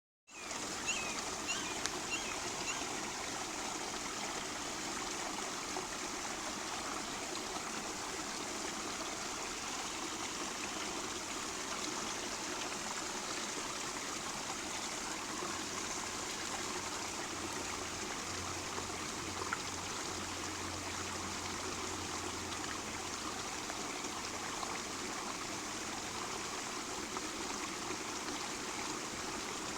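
Small rain-fed creek running, a steady rush of flowing water with trickling over it.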